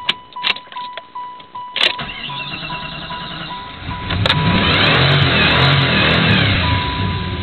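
1994 Jeep Grand Cherokee's 5.2-litre V8 being cranked with the gas pedal held down, catching about four seconds in and revving up and down under the throttle, with a warning chime beeping repeatedly and a few sharp clicks before it fires. It will only stay running with throttle applied, a symptom the owner traced to a gunked-up throttle body.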